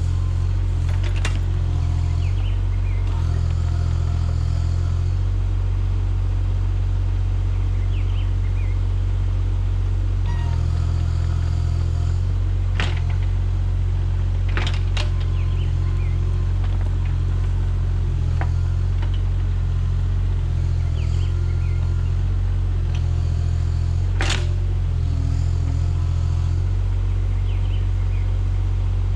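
Mini excavator's diesel engine running steadily under load, its low drone rising and falling every few seconds as the machine works. A few sharp knocks stand out, about a second in, twice around the middle, and once near the end.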